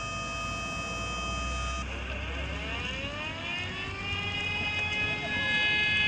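A steady high whine stops about two seconds in, then a motor-driven fire siren winds up, its pitch rising over about three seconds and then holding steady.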